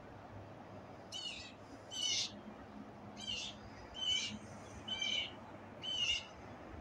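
A bird calling: six short, harsh, raspy calls, roughly one a second, over faint outdoor background noise.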